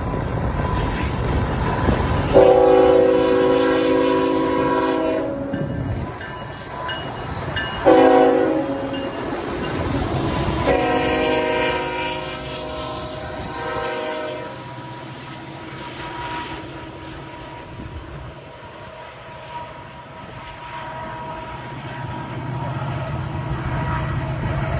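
Union Pacific diesel freight locomotives sounding their multi-note air horn as they pass close by: a long blast, a short one, then another long one. After the horn, the rumble and wheel clatter of autorack freight cars rolling past.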